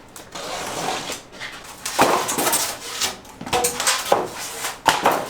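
Irregular knocks and clatter of hard objects being handled.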